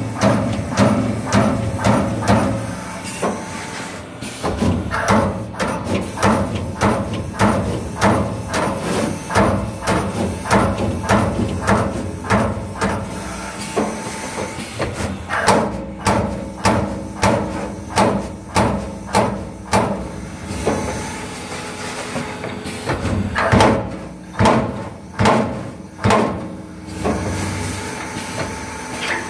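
Accurl MAX-SF-30 ton hydraulic CNC turret punch press punching sheet metal in a rapid run of strokes, about two to three hits a second, with a few short pauses, over the steady hum of the running machine.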